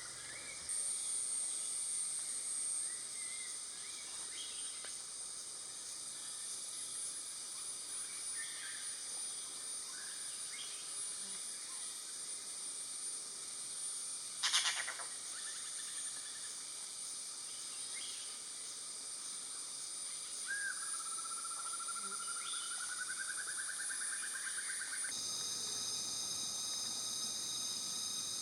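Forest insect chorus, a steady high-pitched drone, with scattered short bird calls and one brief loud call about halfway through. A slowly rising tone lasts several seconds before the chorus changes near the end to several steady high tones.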